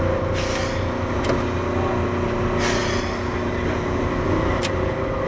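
Running sound of a Keihan 600 series electric train car under way, heard from inside the car: a steady rumble with a humming motor and gear tone, a few sharp clicks and two short hisses.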